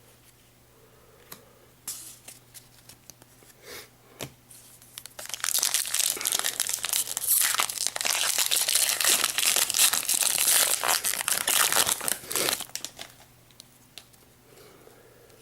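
Foil Pokémon TCG booster pack wrapper being torn open and crinkled: a few light crackles, then several seconds of loud, dense crinkling and tearing that stops suddenly about three seconds before the end.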